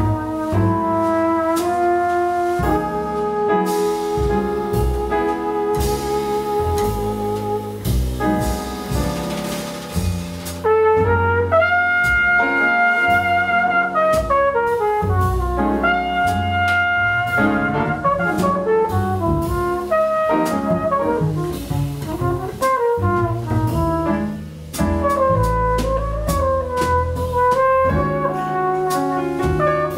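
Live jazz quartet: a flugelhorn plays a melodic lead over piano, double bass and a drum kit with cymbals.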